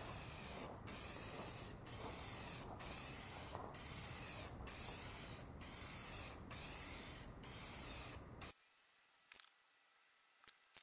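Aerosol spray paint can hissing in a string of about nine sweeps, each about a second long with a very brief break between. The spraying stops suddenly about two seconds before the end.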